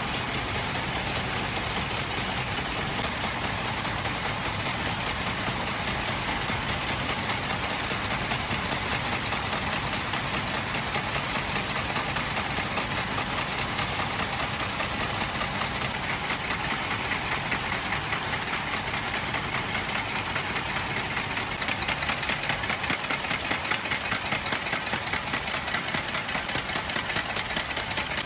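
Nail factory machinery running with a rapid, even mechanical clatter, several sharp strikes a second in an unbroken rhythm.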